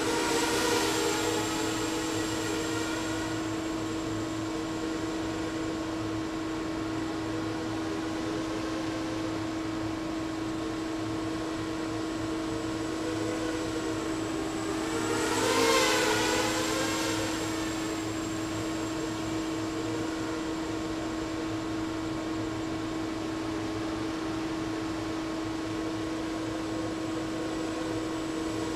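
Diatone 250 racing quadcopter's brushless motors and propellers whining as it flies around, over a steady hum. Two louder passes come close by, about a second in and again near the middle, their pitch rising and then falling.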